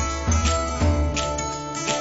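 Background music with a steady bass beat under sustained instrumental tones.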